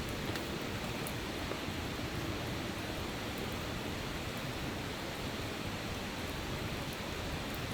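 Steady rushing outdoor noise with a few faint, sharp crackles scattered through it, typical of a wood campfire burning.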